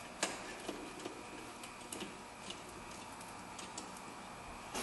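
Ratchet wrench clicking in short, irregular strokes as it loosens the 10 mm nut on a car battery's positive terminal clamp.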